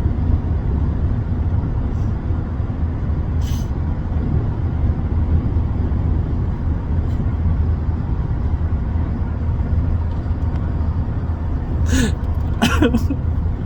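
Steady low road rumble inside a moving car's cabin, with a few short breath noises from a passenger, one about three and a half seconds in and a couple near the end.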